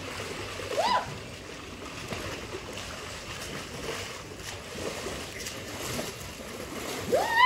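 Swimming-pool water splashing. A short, high rising cry comes about a second in, and a longer cry near the end rises and then holds steady.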